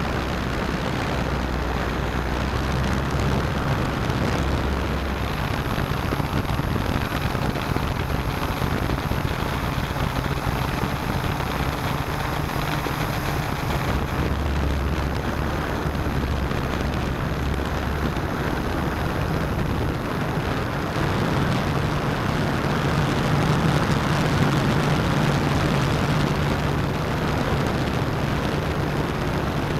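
S650APM hexacopter's six electric motors and propellers running steadily in flight, heard from the camera mounted on the craft, with a rush of air noise. The low hum shifts in pitch now and then and gets a little louder about two-thirds of the way through.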